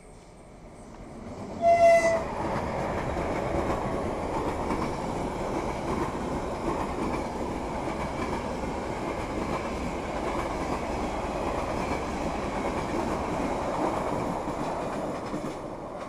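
Electric-locomotive-hauled passenger train passing close by: a short horn blast about two seconds in, then the steady rumble and clatter of wheels on rails as the coaches go by, dying away near the end.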